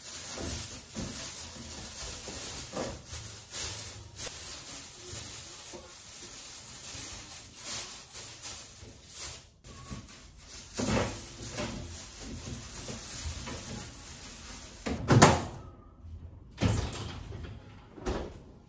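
Plastic rubbish bags rustling and handled in a pull-out kitchen bin drawer, with scattered knocks. A sliding drawer shuts with a loud bang about fifteen seconds in, followed by two more knocks near the end.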